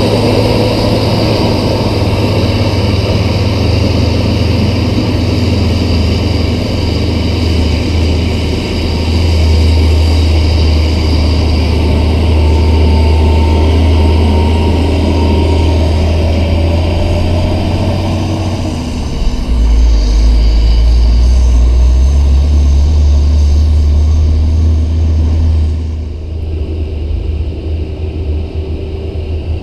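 Diesel engines of Hino hauling dump trucks running under load as they drive past, a loud low drone. About two-thirds of the way through the engine note drops to a lower pitch, and near the end it falls away to a quieter running sound.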